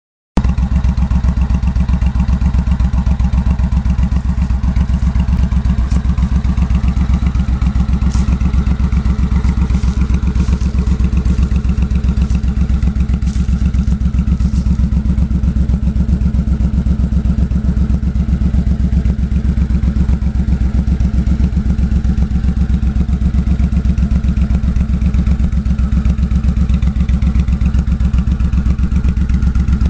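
2007 Suzuki Boulevard C90T's 1462 cc V-twin idling steadily through Cobra "Longs" aftermarket exhaust pipes, an even, rapid low pulse that holds the same pitch throughout.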